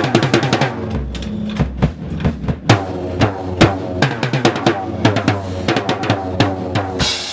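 Band music led by a drum kit: a rapid drum fill, then from about a second in a steady beat with a low bass note and other pitched instruments under it, and a loud crash near the end.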